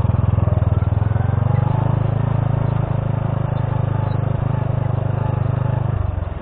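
Honda C70's small single-cylinder four-stroke engine running under way as the step-through motorcycle rides over a rough gravel track, a steady low pulsing note. The engine sound drops back about six seconds in.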